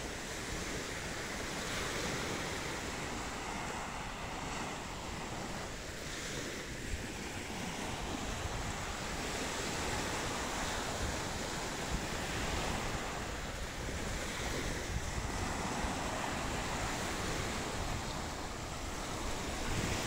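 Sea waves breaking and washing onto a beach in slow, repeated swells, with wind rumbling on the microphone.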